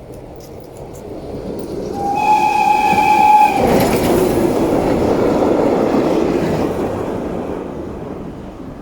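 TKt48 tank steam locomotive blowing a steady whistle for under two seconds, about two seconds in. The locomotive and its train then go past loudly, loudest about three and a half seconds in, and fade away.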